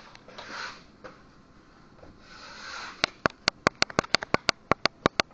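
A dog sniffing in short breathy bursts, followed from about three seconds in by a quick run of sharp clicks, about four or five a second.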